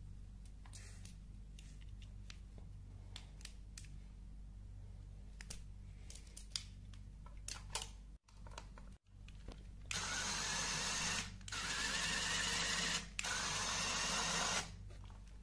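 Light clicks of LEGO Technic parts being handled and fitted, then from about ten seconds in a small electric motor running a LEGO gear train with a loud, even whir that breaks off briefly twice before stopping near the end.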